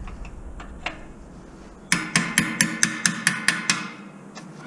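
Spanners clanking metal on metal against a tight nut on a bus fuel tank's fitting: a few faint ticks, then about eight quick, sharp ringing strikes in under two seconds. The nut is stuck fast.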